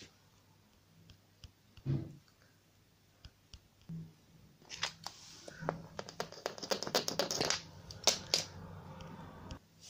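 Paper scratch cards being handled on a wooden table: a single knock about two seconds in, then several seconds of rustling and clicking that stops suddenly near the end.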